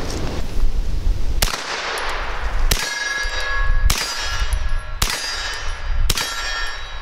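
Hi-Point 9mm blowback carbine firing five aimed single shots at a slow, steady pace, about one a second, each shot followed by a metallic ringing clang.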